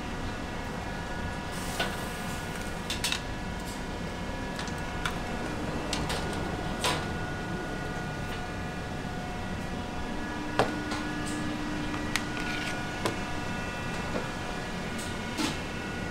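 Steady kitchen hum with scattered light clinks and clicks of metal tongs against plates and the metal steamer, the sharpest about ten seconds in.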